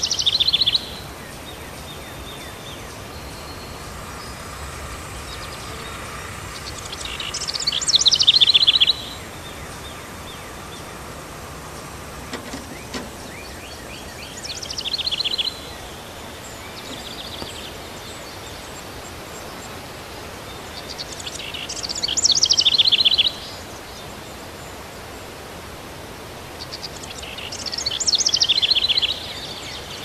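A songbird repeating the same short trilled song phrase every six to seven seconds. Each phrase builds in loudness and ends abruptly. Steady outdoor background noise runs underneath.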